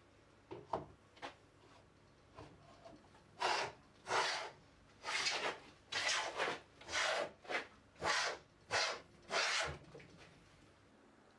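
A hand tool stroked across wood, about ten separate scraping strokes at an even pace, after a few light knocks at the start.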